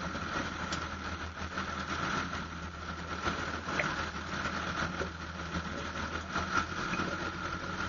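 Boat engine running at low speed, a steady low hum with a thin, steady high whine over it.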